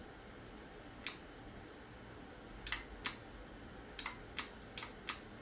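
Short, faint metallic clicks from handling a coil tattoo machine, about seven of them scattered through the second half, as its parts are worked on. The machine itself is not running.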